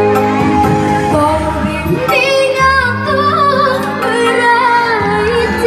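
A child singing a melody with vibrato over music accompaniment; the voice comes in about two seconds in, over held accompanying tones.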